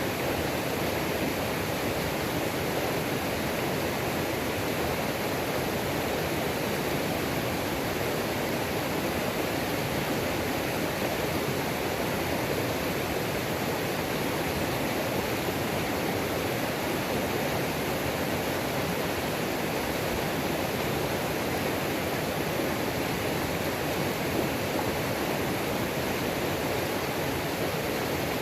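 Waterfall on a mountain creek, water falling and rushing in a steady, unbroken roar.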